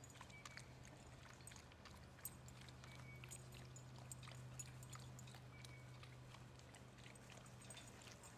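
Near silence: faint outdoor ambience with a steady low hum, scattered faint clicks and a few short high chirps.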